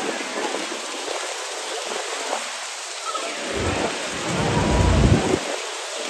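Steady rushing roar of falling water and spray from Niagara Falls, heard from a boat close to the falls. A heavy low rumble swells for about two seconds after the middle and then drops away.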